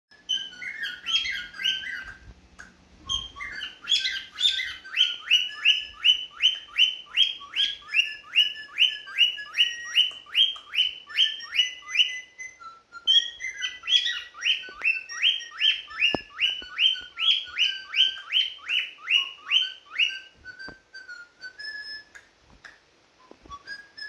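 Lutino cockatiel calling loudly, a fast run of sharp repeated chirps at about two to three a second. The run breaks briefly about halfway, then carries on, and near the end it gives way to softer held whistled notes.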